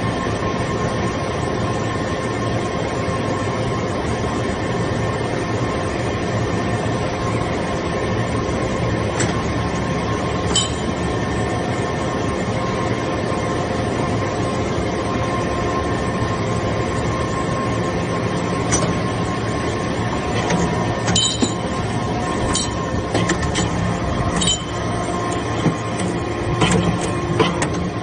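Hydraulic briquetting press for metal shavings running, with a steady hum from its hydraulic pump unit. Sharp metallic clinks start about nine seconds in and come more often in the second half.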